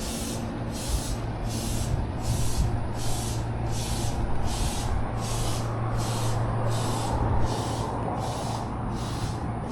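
Japanese railway level-crossing alarm ringing on and on at about two strikes a second while the crossing stays closed, over a low steady hum.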